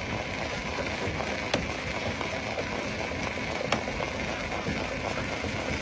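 Rock crusher running steadily, with two sharp cracks of stone being broken about two seconds apart.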